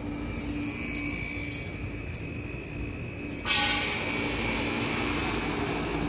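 Footsteps crunching on a sandy dirt path, one step about every 0.6 s. About halfway through, a louder steady buzzing hiss joins in.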